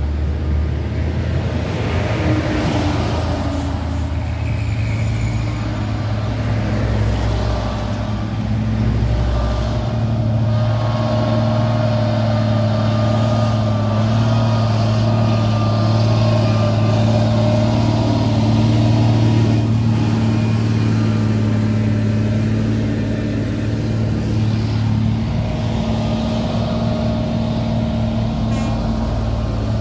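Heavy truck's diesel engine running steadily, its note holding fairly level with small rises and falls.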